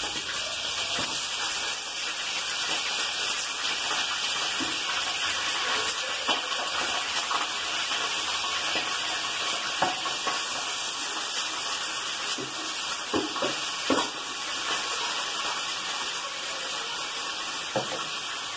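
Chicken pieces frying in hot oil in a pan, a steady sizzle, with a few scattered knocks of a spatula against the pan.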